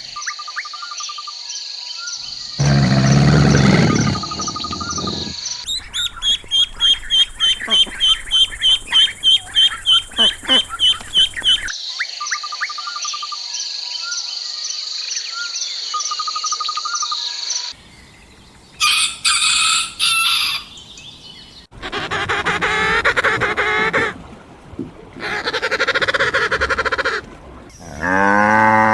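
A run of short animal-sound clips cut one after another: birds chirping and chicken calls, including a stretch of quick, evenly repeated calls about three a second.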